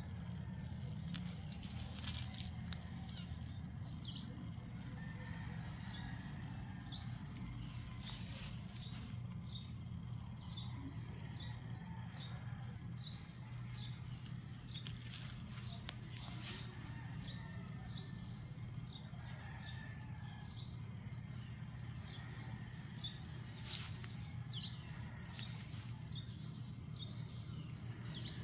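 Outdoor ambience: a steady high-pitched drone over a low hum, with short high ticks or chirps repeating about once or twice a second.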